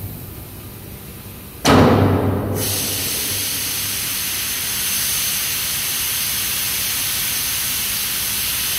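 Pneumatic cylinders of a stainless-steel cattle slaughter box working: about two seconds in, a sudden loud rush of compressed air with a low drone, settling into a steady air hiss.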